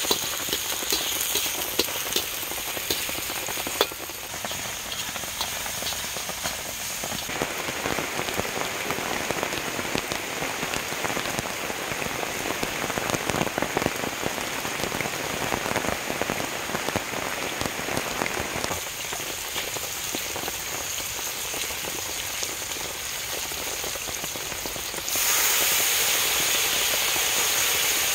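Steady rain falling on leaves and the ground. Near the end it is joined by a louder, brighter hiss from the wok.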